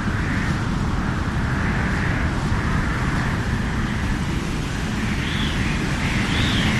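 Wind sound effect: a steady rushing gust over a low rumble, swelling and easing every second or so. Near the end, higher whistling tones rise and fall, like wind howling.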